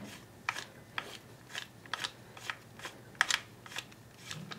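Irregular light clicks and taps, roughly two a second, from plastic and metal parts of an airsoft rifle's lower receiver and pistol grip being handled as an Allen key is worked in the grip screw.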